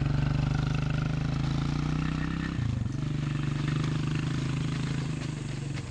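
An engine running steadily with a low, even hum. Its pitch dips briefly about two and a half seconds in, then recovers.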